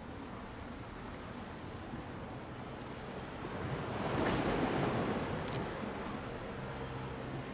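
Sea waves washing on the shore with steady wind noise; one wave surges in and dies away about halfway through.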